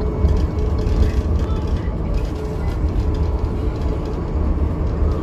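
Steady rumble of a moving bus heard from inside the cabin: engine and road noise with a faint steady hum.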